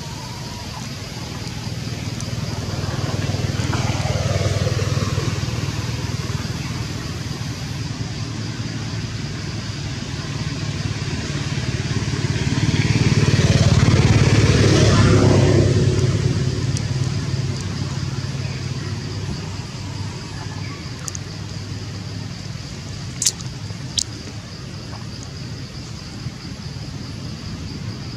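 Two motor vehicles passing on a nearby road, one about four seconds in and a louder one about fourteen seconds in, each engine note swelling and falling in pitch as it goes by. Two sharp clicks near the end.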